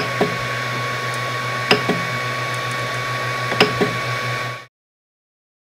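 Creality Ender 3 Pro 3D printer's fans running steadily at full speed while it preheats for PLA, with a few light clicks from the control knob being turned and pressed. The sound cuts off suddenly near the end.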